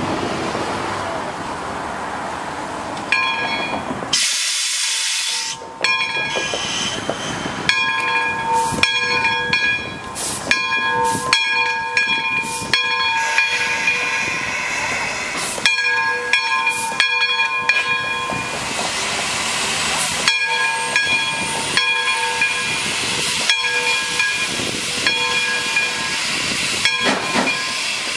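Steam 0-6-0 locomotive getting under way: steam hissing from the open cylinder cocks, with a louder burst of hiss about four seconds in. From about three seconds in, its bell rings over and over, about once a second.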